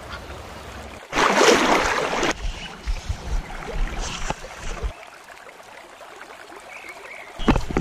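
Creek water running as an even rush, with a louder stretch of rushing noise a second or so in and scattered low bumps after it.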